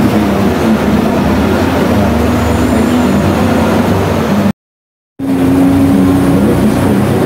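Tour tram driving along, a steady engine drone with rumbling running noise. The sound cuts out completely for under a second about four and a half seconds in, then resumes with a steadier hum.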